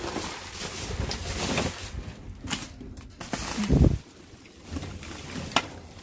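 Plastic garbage bags rustling and crinkling as they are shoved aside by hand, with a few sharp knocks and one loud low thump near the middle.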